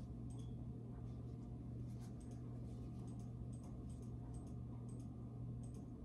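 A run of faint light clicks, about two or three a second, from gloved hands handling plastic IV tubing and its drip chamber, over a steady low hum.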